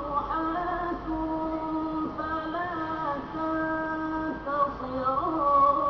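Melodic chanted Quran recitation in Arabic by a single high voice, long held notes that glide from one pitch to the next.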